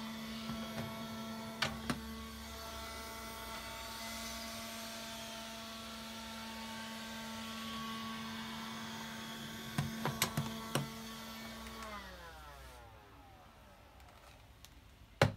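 Electrolux WELL S7 battery window vacuum running with a steady motor whine, with a few light clicks and knocks as it is handled. About twelve seconds in it is switched off and the whine falls in pitch as the motor winds down, followed by a sharp click near the end.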